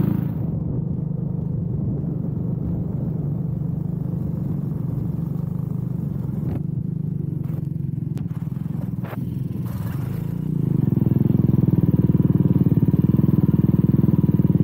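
A cyclekart's small engine running, heard from on board. The engine note drops back just after the start and runs lower through the middle, with a few sharp clicks. About ten seconds in it picks up louder again.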